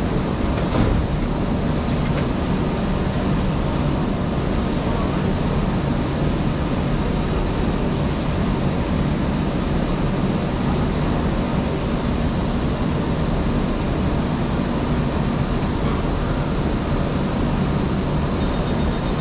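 Singapore MRT train standing at a platform with its doors open: a steady hum from the stationary train's equipment, with a thin, steady high-pitched whine over it.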